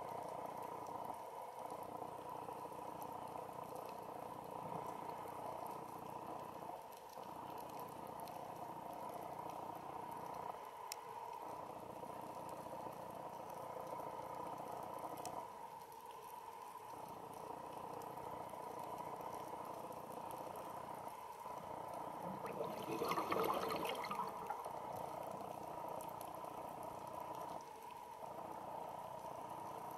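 Underwater sound around a diver breathing on a rebreather: a steady hum and hiss that dips briefly about every five seconds, with one louder burst of bubbling about three-quarters of the way through.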